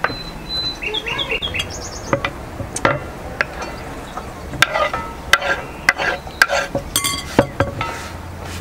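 A utensil clinking and scraping against a cooking pot in a run of sharp knocks, with a bird chirping in short quick notes about a second in.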